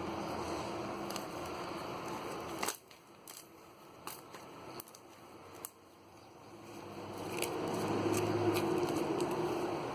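Homemade slime being handled, giving a few sharp clicks and pops, over a steady background hiss and hum that drops out suddenly a little under three seconds in and builds back up from about seven seconds.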